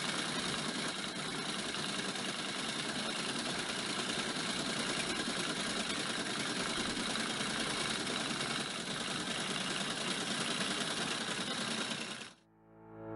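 Steady, rapid mechanical clatter, a sound effect laid under a typed-on title animation, cutting off suddenly near the end.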